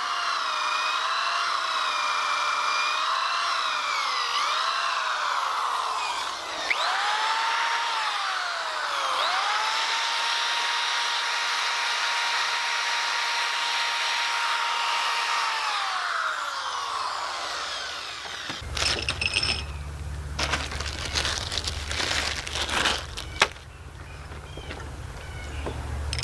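Cordless drill running in two long runs, its motor pitch sagging under load as it works into the log, then winding down. From about two-thirds of the way through, a low steady hum with scattered knocks and clicks.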